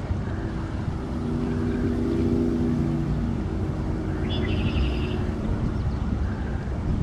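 A low, steady engine drone with a hum of several held tones. A bird chirps briefly about four and a half seconds in.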